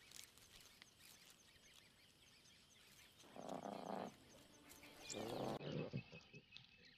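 Lions calling: two low calls about a second long, one about three seconds in and one about five seconds in, over faint, evenly repeating high chirping.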